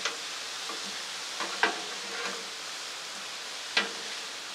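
Vegetables sizzling on a Blackstone flat-top griddle, steaming in freshly poured chicken stock. Metal spatulas clack on the steel three times: at the start, about a second and a half in, and near the end.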